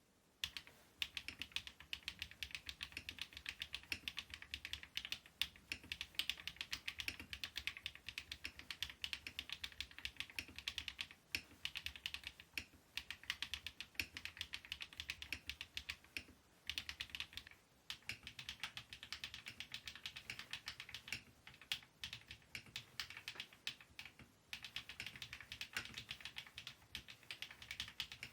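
Fast, continuous typing on a KiiBOOM Phantom 81 V2 mechanical keyboard, a dense run of key clacks broken by a few brief pauses.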